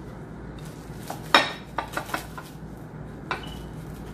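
A handful of clinks and knocks of dishes being handled on a counter, the loudest about a second and a half in, and one near the end ringing briefly.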